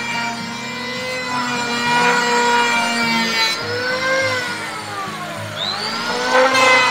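DCK electric hand planer running with a high motor whine while planing a wooden beam, its blades rasping over the wood. About four seconds in the motor winds down, then spins quickly back up near six seconds and cuts again.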